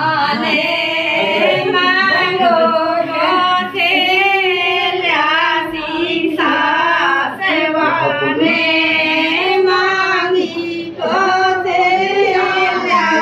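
A high female voice singing a song, with long wavering held notes.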